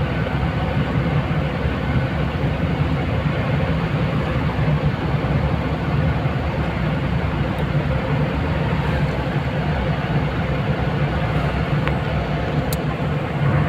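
A car being driven at steady speed, its engine and road noise making a continuous low rumble. A couple of faint clicks come near the end.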